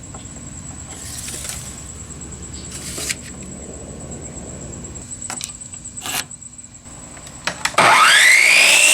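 An electric saw's motor starts near the end, a rising whine that levels off into a steady high pitch as the blade spins up to speed. Before it there are only crickets chirping steadily and a few light knocks.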